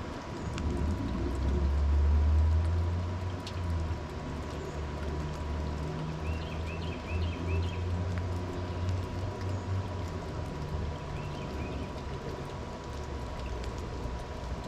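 A low engine rumble swells, peaks about two seconds in, then runs on more quietly and fades out. A quick run of short bird chirps comes in the middle, with a few more later, over a faint steady whine.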